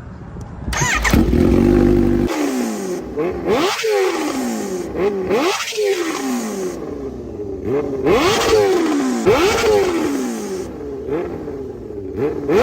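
Kawasaki Ninja H2 supercharged inline-four motorcycle engine being revved in place. A heavy low rumble sets in about a second in, then about eight quick throttle blips follow, each shooting up in pitch and falling slowly back. The two biggest blips come in the first half.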